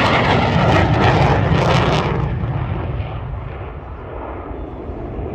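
An F-15 Eagle fighter jet's twin turbofan engines, loud as the jet passes low. About two seconds in, the hiss drops away, and a lower rumble fades as the jet climbs off.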